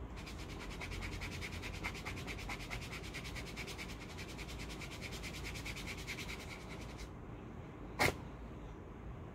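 A hand rubbing briskly over skin in fast, even strokes, about eight a second, which stop about seven seconds in. About a second later comes a single short, sharp snap, the loudest sound.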